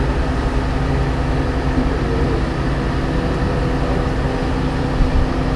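Cog railway locomotive's diesel engine idling with a steady low hum while the train stands at a switch.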